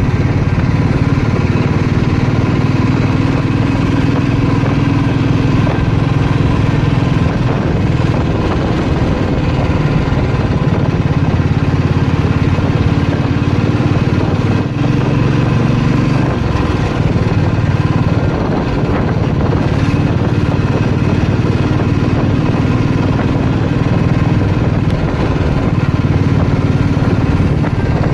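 Royal Enfield Bullet's single-cylinder engine running steadily while riding, heard from the rider's seat.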